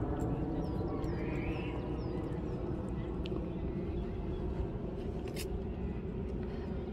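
Open-air park ambience: a steady low rumble and murmur, with a few short, high, falling chirps of a small bird in the first couple of seconds and an odd sharp click.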